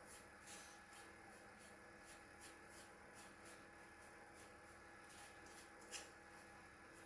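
Faint scraping and clicking of a fork mixing egg into a mushroom and breadcrumb stuffing in a pan, about two to three strokes a second, with one sharper click about six seconds in.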